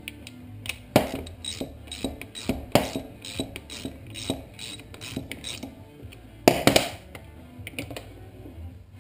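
Metal engine parts and tools clinking and knocking on a workbench during engine disassembly: an irregular string of sharp clinks, with a louder clank about a second in and another about two-thirds of the way through.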